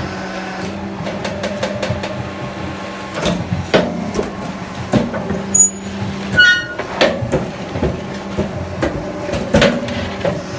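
Concrete mixer running: a steady mechanical hum with irregular knocks and clatter throughout.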